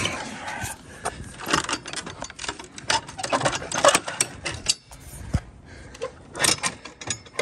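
Wooden fence gate and its metal latch rattling and knocking in quick, irregular clicks as the stubborn gate is pushed and jiggled to get it to latch.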